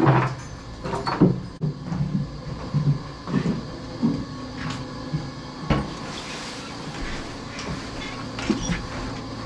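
Scattered metallic clanks and knocks from barn chores, metal stall gates and a steel wheelbarrow being handled, over a steady machinery hum.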